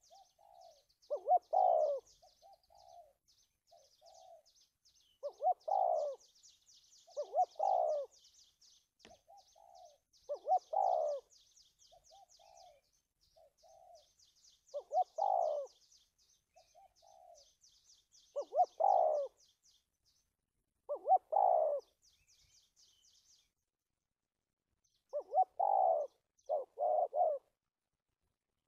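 Spotted dove cooing in short stammering phrases of two or three quick notes, repeated every two to four seconds, with softer notes between the phrases. Faint, rapid high-pitched chirping runs behind it for most of the time and stops near the end.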